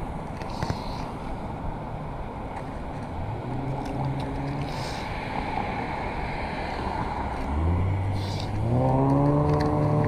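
Traffic at a city intersection: steady road noise, and from about eight seconds in a motor vehicle's engine pulls away, its pitch climbing as it accelerates and grows louder.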